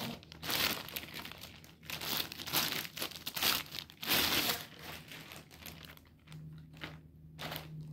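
Clear plastic wrapping crinkling and rustling as it is pulled off a new shotgun's barrels and fore-end. The rustling comes in dense bursts for the first four seconds or so, then a few short crinkles near the end.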